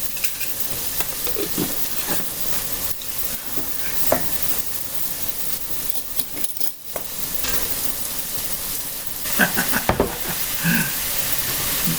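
Chicken sausage and tomato paste frying in a cast-iron skillet with a steady sizzle, broken by a few knocks and scrapes of a utensil stirring it.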